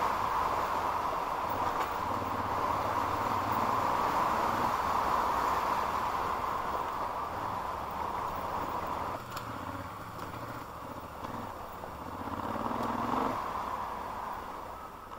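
A vehicle driving on a rough unpaved road, with a steady mix of engine and tyre noise that grows quieter in the second half.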